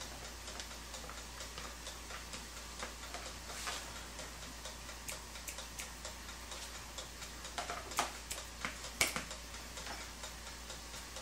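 Steady faint ticking of the electric pizza oven's clockwork timer as it runs down. Over it come a few light clicks and taps of a metal fork against a plastic tub as mushrooms are laid on the pizza, the loudest about 4, 8 and 9 seconds in.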